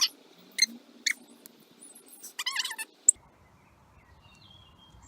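A small pet animal squeaking: two short high-pitched squeaks in the first second or so, then a longer run of squeals near the middle, ended by a sharp click. Faint chirps follow.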